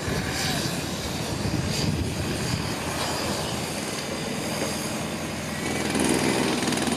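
Steady machinery noise from a concrete demolition site. About six seconds in it grows louder with the rapid rattle of a pneumatic jackhammer breaking up the concrete deck.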